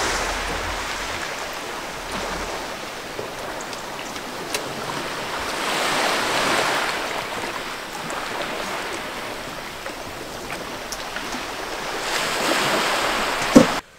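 Small waves washing onto a pebble beach, the hiss swelling and falling back about every six seconds. Low wind rumble on the microphone at the start and a sharp click near the end.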